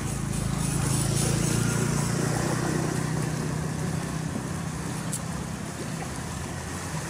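A small engine runs with a steady low hum that is loudest for the first few seconds and then fades. A single faint click comes about five seconds in.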